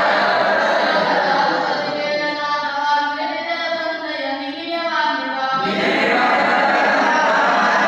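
Group of young Brahmin boys chanting a Sanskrit evening aarti recitation together. A couple of seconds in the chorus thins to a few voices with a clearer pitch, then the full group comes back in at once about two-thirds of the way through.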